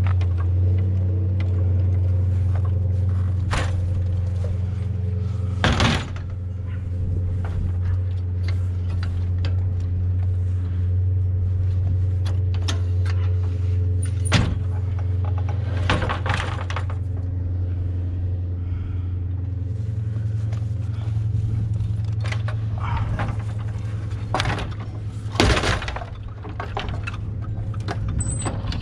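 Fiberglass extension ladder knocking and clanking against a van's roof ladder rack as it is swung up and loaded, with a handful of sharp knocks spread through, the loudest near 6 s and in a cluster around 16 and 25 s. A steady low hum runs under it throughout.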